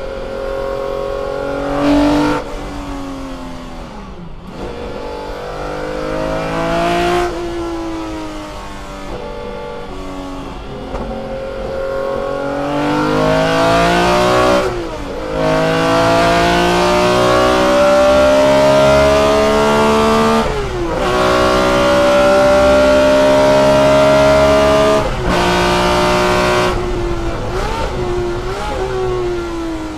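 BMW M1 ProCar's 3.5-litre straight-six racing engine heard from inside the cockpit, running hard on track. Its pitch climbs and drops back sharply several times as it changes gear, loudest through the long middle stretch. Near the end the revs fall and rise in short jumps as it slows.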